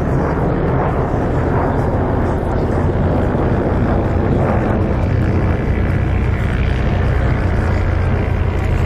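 Belgian F-16 fighter jet flying a display manoeuvre overhead: its turbofan engine makes a loud, steady jet rumble, heavy in the low end, with no breaks.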